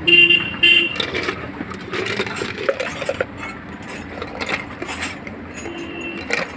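Metal clinks and taps as car AC compressor clutch parts and tools are handled and set down on a stone slab, with a couple of short ringing tones near the start.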